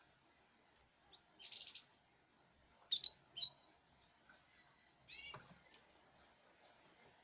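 Caged songbirds giving short, separate chirps, about half a dozen spaced a second or so apart, the loudest about three seconds in.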